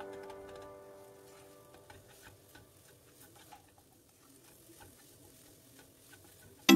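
Background music fades out over the first two seconds, leaving faint ticks and taps of a spatula stirring scrambled egg in a nonstick pan. Loud music starts again at the very end.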